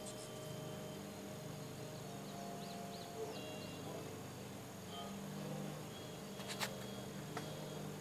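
Hummingbird's wings humming, fading in and out as it hovers and darts about, with a few short high chirps about two and a half seconds in and a steady high insect drone. Two light clicks near the end.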